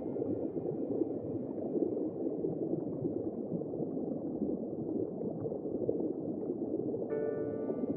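Steady, muffled bubbling and rushing water noise. Background music with sustained tones comes back in about seven seconds in.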